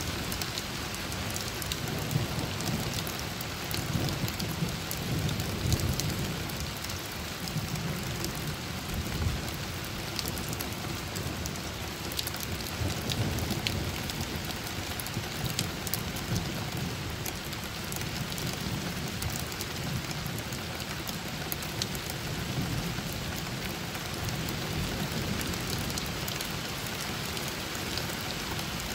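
Steady rain falling, with many sharp drop ticks, and a low rumble that swells and fades every few seconds.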